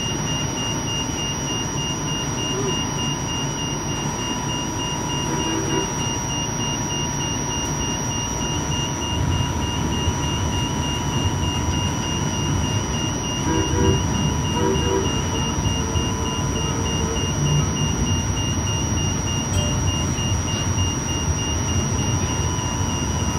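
Light rail car of Cleveland's RTA Blue Line running, a low rumble that grows a little louder partway through. Over it sit a steady high whine and a rapidly pulsing high beep-like tone.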